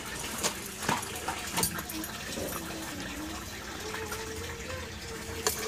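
Curry bubbling at a rolling boil in a kadai, with a few sharp knocks of a metal spatula against the pan, the loudest near the end.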